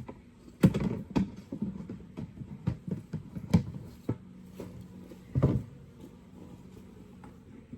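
Wooden Layens hive frames knocking and scraping as they are lifted out and shifted: a handful of sharp knocks and clatters, over a faint steady hum of honeybees.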